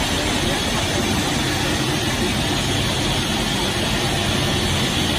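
Steady machine hum and hiss of a running PP hollow sheet extrusion line.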